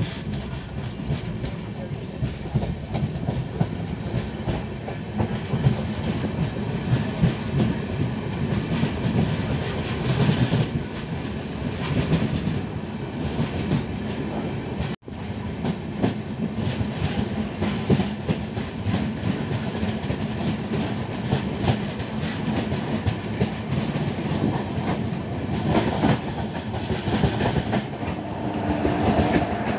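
Tamil Nadu Express passenger train running along the track, its wheels clattering over the rail joints over a steady rumble, with a momentary break in the sound about halfway through.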